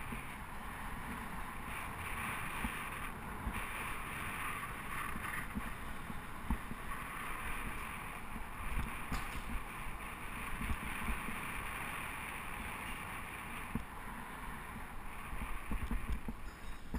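Steady wind and rolling road noise from riding a bicycle through city streets, heard through a GoPro camera's microphone, with irregular low bumps and rumbles from the road surface.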